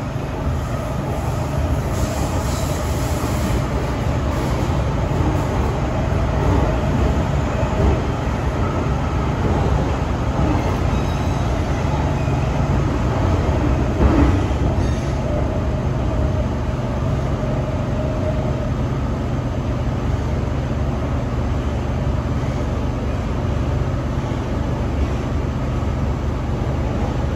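MTR Kwun Tong Line M-train running at speed between stations, heard from inside the car: a steady low rumble of wheels and running gear with a faint, even whine from the traction equipment.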